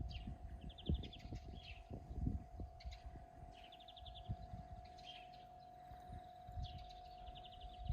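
Songbirds singing: a short, rapid trill of evenly spaced notes repeated about every three seconds, with other brief chirps between. Irregular low thumps and rumble and a steady faint hum lie underneath.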